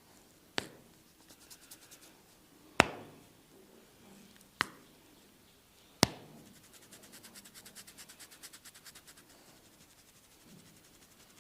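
Four sharp cracks from a barber's head massage, a second or two apart, the second the loudest. They are followed by a fast run of faint ticks, about ten a second, lasting a couple of seconds.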